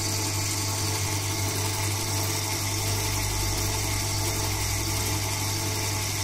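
Handmade coil-winding machine running steadily with a constant hum as it winds enamelled copper wire onto a Tesla coil former.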